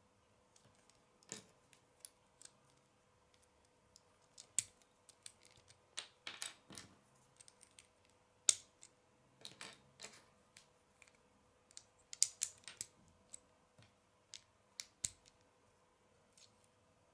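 Plastic Lego bricks clicking and snapping together as they are pressed on by hand: irregular sharp clicks, with a couple of short scraping rubs of plastic on plastic.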